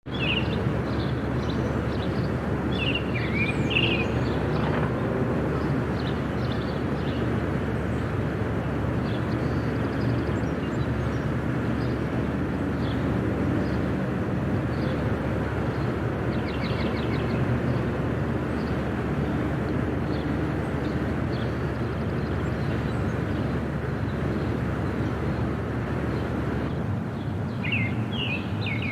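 Outdoor field recording of a steady low rumble that carries all the way through, with small birds chirping over it a few times: in the first few seconds, about halfway through, and again near the end.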